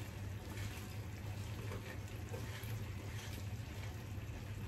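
Fried sweet corn kernels tipped from a paper towel into a pan of sauce, with a few faint soft ticks over a steady low kitchen hum and hiss.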